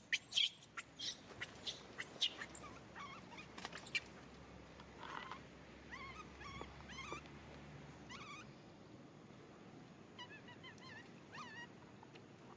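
Baby pigtail macaque crying: a quick run of shrill, very high squeals in the first two seconds, then softer, wavering whimpering calls every second or two.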